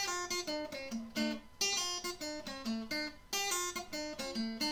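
Intro music: an acoustic guitar picking a melody one note at a time, about three notes a second, each note ringing and fading.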